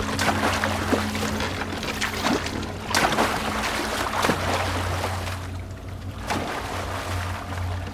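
Oars of a small wooden rowboat dipping and pulling through water, making repeated splashes and drips, with a stronger splash every second or two. A low, steady musical drone runs underneath.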